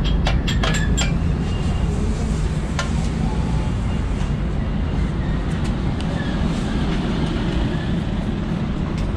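Light metallic clinks of hand tools against the motorcycle's engine casing as the oil strainer is worked loose: several in the first second and another about three seconds in, over a steady low rumble.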